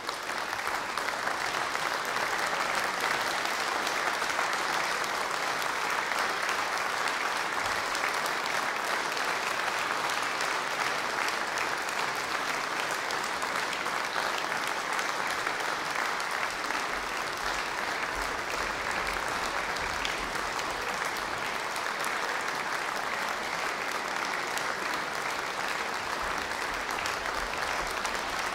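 Audience applauding, a dense, even clapping that holds steady throughout.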